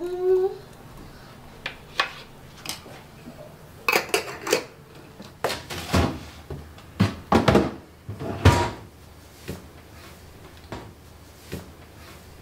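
Kitchen handling sounds: a string of clicks and knocks as a refrigerator's door and drawers are opened and closed and containers are put away, loudest from about six to nine seconds in.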